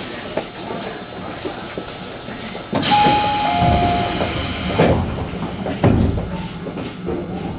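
Electric commuter train standing at a platform. About three seconds in comes a sudden loud hiss of compressed air with a brief falling two-note tone, followed by two heavy thumps: the pneumatic doors closing before departure.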